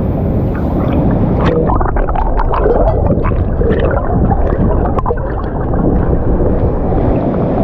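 Loud, steady rush of a waterfall plunging into its pool. About a second and a half in, close splashing and gurgling water sounds break over it for a few seconds.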